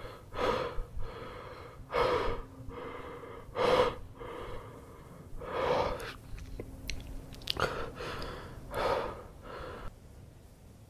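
A person breathing heavily and raggedly, loud wheezy breaths every second or two, dying away shortly before the end.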